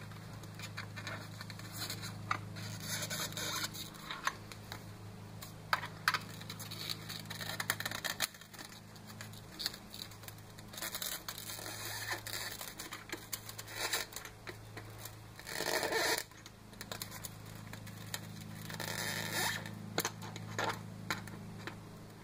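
Hands working on a foam toy airplane: irregular scrapes and scratches of the foam and a pin being pushed into the wing joint, with one louder scrape about two-thirds of the way through, over a steady low hum.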